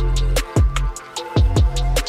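Background music with a beat of deep, pitch-dropping bass drum hits and long low bass notes, with sharp percussion hits on top.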